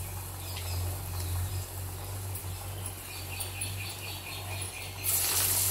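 Hot oil sizzling and crackling around a masal vadai deep-frying in a pot, over a steady low hum. The sizzle gets louder near the end.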